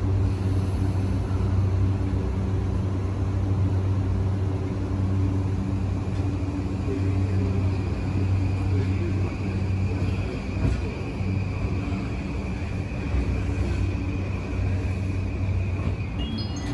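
E235 series 1000 electric multiple unit pulling out of the station and accelerating away: a steady low hum and rumble, with a faint high whine coming in about seven seconds in.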